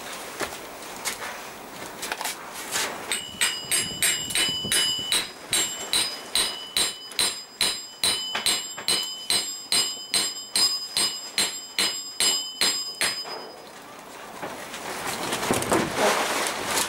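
Steady run of ringing hammer blows on a metal bar, about two or three a second, driving a heated metal pulley onto an electric motor's shaft, after a few slower taps at the start. Rustling handling noise near the end.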